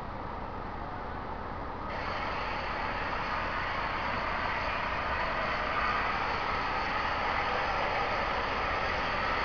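Peppercorn A1 Pacific steam locomotive 60163 Tornado approaching under steam: a steady rushing noise, with no distinct chuffs, that grows louder about two seconds in and keeps building.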